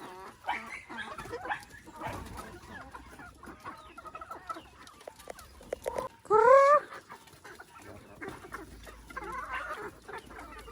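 Chickens clucking, many short calls overlapping, with one loud, short rising call about six seconds in.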